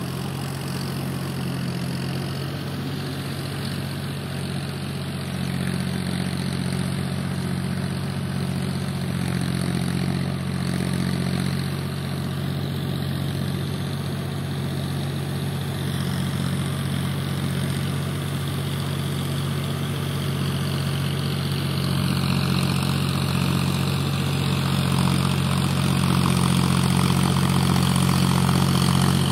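John Deere 5050D tractor's three-cylinder diesel engine running steadily as it pulls a Shaktiman rotavator through a flooded paddy field. It grows louder over the last several seconds as the tractor comes closer.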